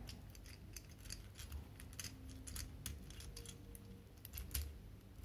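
Faint, irregular clicks and ticks of hard plastic as the parts and joints of a Transformers action figure are handled and moved during its transformation, with a few soft bumps.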